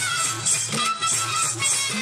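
Dance music with a steady beat and a high melody line.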